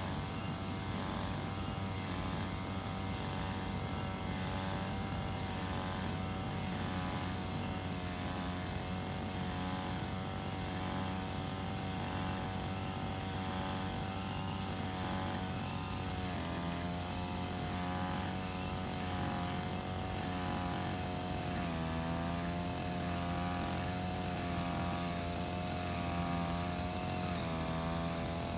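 Engine-driven brush cutter running steadily while cutting grass. Its pitch wavers as the spinning head meets the grass, and drops a little about halfway through and again a few seconds later.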